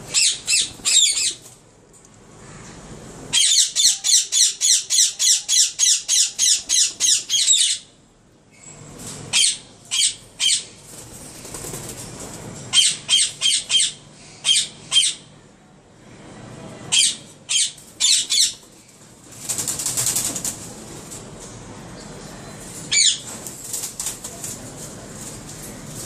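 Caged parrots screeching: shrill, sharp calls repeated in quick runs, one long run of about three calls a second lasting some four seconds, then shorter bursts of two to four calls. A rustling flurry of wing flapping comes about three-quarters of the way through.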